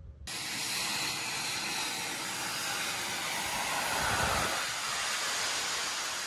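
Jet suit's arm-mounted small turbine engines running with a steady, loud hissing rush. The sound starts suddenly, then swells louder about four seconds in as the flyer comes close.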